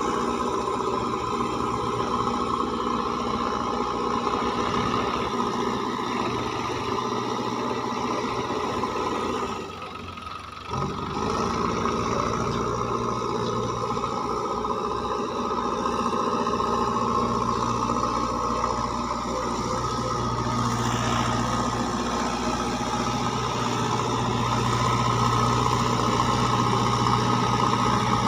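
JCB 3DX backhoe loader's diesel engine running steadily as the machine drives over loose soil. The sound drops briefly about ten seconds in, then picks up again.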